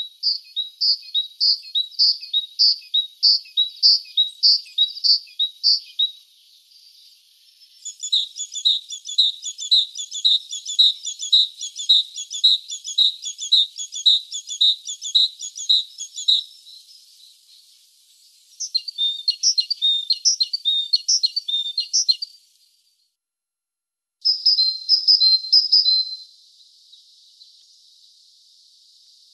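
Great tit singing: rapid repeated phrases of two or three high, clear notes, about two phrases a second, in several bouts with short pauses between them.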